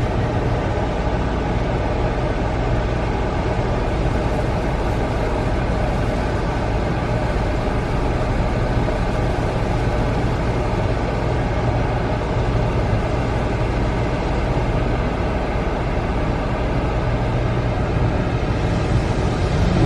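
Automatic car wash running: a steady rushing noise with a low hum underneath.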